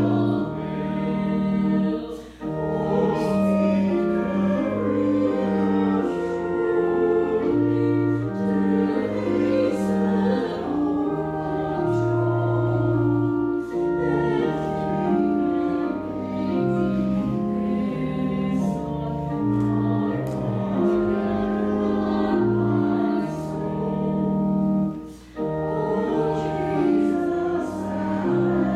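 A hymn sung by choir voices with organ, in held notes that change step by step. The music drops out briefly twice, about two seconds in and near the end, at breaks between phrases.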